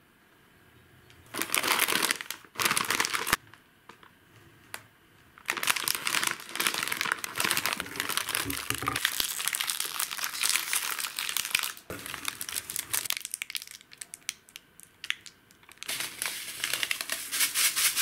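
Plastic snack packaging crinkling as it is handled. The crinkling comes in bursts: a short one near the start, a long stretch through the middle, and another near the end.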